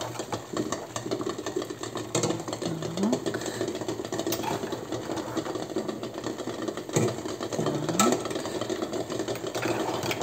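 Pot of salted water at a rolling boil on an electric hob with eggs in it, bubbling and rattling steadily. A few sharp knocks come through, one about two seconds in and two more about seven and eight seconds in.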